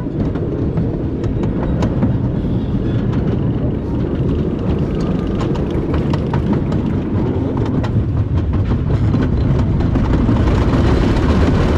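Wodan Timburcoaster, a GCI wooden roller coaster, heard from the front seat as its train runs over the track. A heavy rumble carries rapid clatter and clicks of the wheels on the wooden track, growing a little louder near the end.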